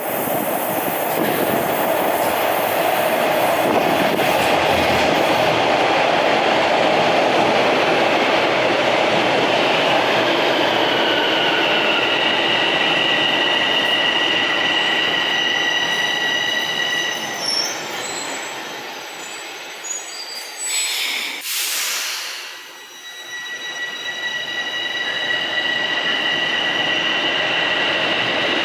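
Toronto Rocket subway train running through an underground station, a loud rumble and rush with a high steady whine. About two-thirds of the way in the noise falls away for a few seconds, with a brief hiss. Then the whine and rumble build again.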